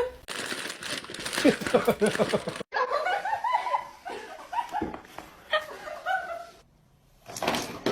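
People laughing in quick repeated bursts. The sound cuts off suddenly and is followed by a higher, wavering vocal sound.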